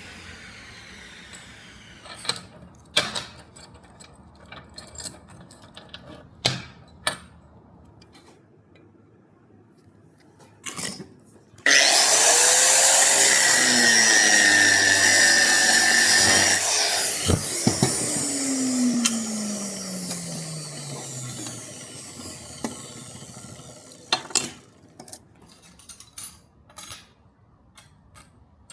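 Electric grinder switched on abruptly about twelve seconds in, running for about six seconds, then switched off and winding down with a falling whine. Scattered clicks and knocks of metal and tools being handled come before and after.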